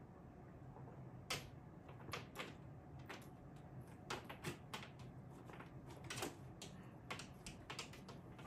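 Cats batting at a toy hanging on a string from a carpeted cat tree: irregular light taps and clicks, starting about a second in and coming in quick clusters, over a low steady room hum.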